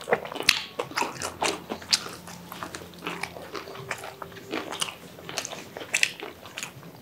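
Biting and chewing of crispy fried chicken, a broast leg piece, with many irregular sharp crackles from the breaded crust, and a sandwich being eaten alongside.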